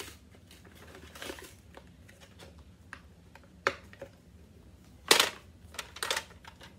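Hands handling a plastic X-Shot toy sniper blaster and its foam darts: scattered light clicks, taps and rustles, with a louder rustling scrape about five seconds in.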